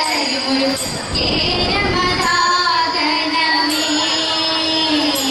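Women's voices singing a Thiruvathira song with long held notes, the song that accompanies a Thiruvathirakali group dance.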